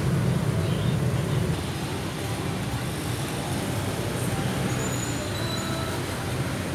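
Steady low rumble of background noise, slightly louder for the first second and a half, with a few faint high tones above it.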